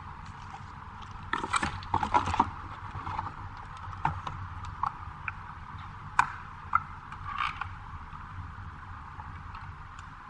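Hands handling the camera and its cables and parts: a cluster of scrapes and clicks about a second and a half in, then a series of single sharp plastic clicks, over a steady low hum.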